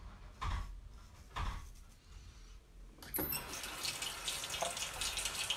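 Two short knocks, about half a second and a second and a half in, then a sink tap turned on about three seconds in, with water running steadily.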